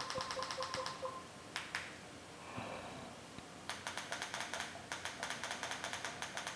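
Rapid runs of faint clicks, about seven a second, from a remote control's buttons pressed over and over to scroll through an Android TV settings menu, with a pause and a couple of single clicks in between.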